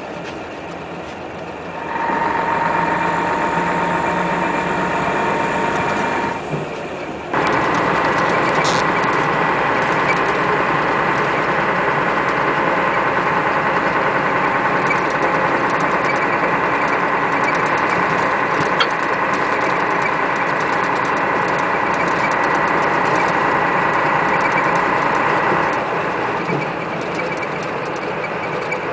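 Ikarus 395 coach on a Scania chassis heard from inside while under way: engine and drivetrain running with a steady high whine. The whine grows louder about two seconds in and again about seven seconds in, then eases off near the end. These are odd whining noises whose cause the rider does not know.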